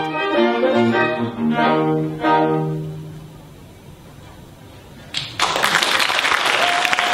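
Bassoon quartet of bassoon, violin, viola and cello playing its final chords. The last chord is held and dies away about three seconds in. After about two seconds of quiet, the audience breaks into applause.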